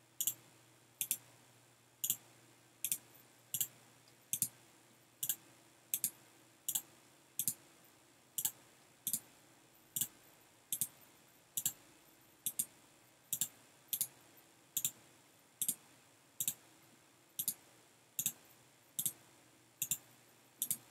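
A computer mouse clicking over and over, about one to two sharp clicks a second, as nodes are right-clicked and Start is picked from a menu for each in turn. A faint steady hum sits underneath.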